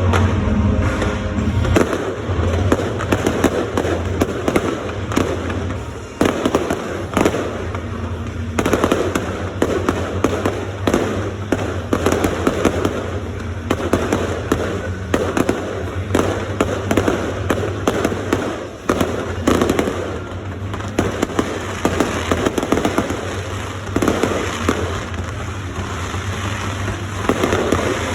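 Fireworks going off in quick succession: a dense run of bangs and crackling pops that keeps going, over a steady low hum.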